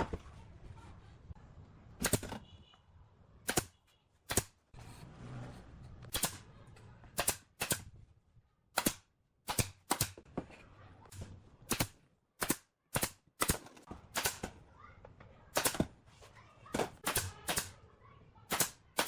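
Sharp knocks in the workshop at uneven intervals, roughly one a second, some coming in quick pairs.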